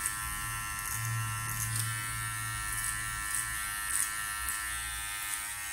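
Powertec TR-1700 electric hair clipper running with a steady buzz as it cuts short, thick hair on the side of the head above the ear.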